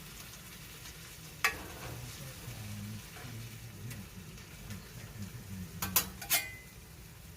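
Corned beef hash sizzling in bacon fat in a cast iron skillet while a spatula stirs it, knocking against the pan once about a second and a half in and twice near the end.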